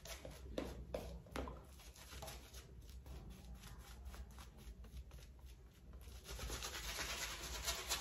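Shaving brush working a thick shaving-soap lather over the face: faint, quick wet brushing strokes.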